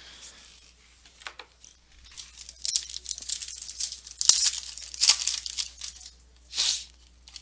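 Foil wrapper of a trading-card pack crinkling and tearing as it is ripped open by hand, with a sharp snap midway and a short crinkle near the end.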